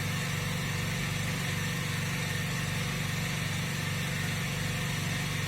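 Steady low machine hum with a fast flutter and no change in pitch or level.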